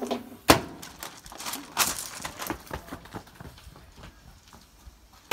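Scattered irregular clicks and knocks, one sharper knock about half a second in, then a firework banger going off inside a microwave with a loud bang right at the very end.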